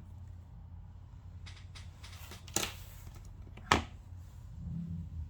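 Two sharp clicks about a second apart, from small tools and parts being handled while a smartphone is taken apart, over a low steady hum.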